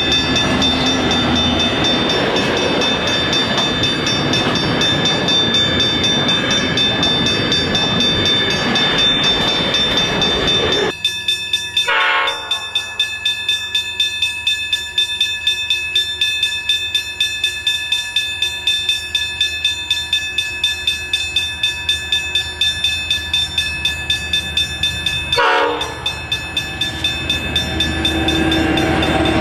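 A diesel freight train's locomotives and wagons passing close by, with steady heavy wheel-on-rail rumble. It cuts off abruptly about eleven seconds in, followed by a distant approaching diesel locomotive, an EMD-engined 81 class, that sounds two short horn blasts and grows louder as it draws near at the end.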